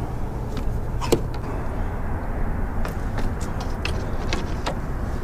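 Steady low rumble with a scattered series of light clicks and knocks, the sharpest about a second in, from fishing rods and gear being handled on a plastic kayak.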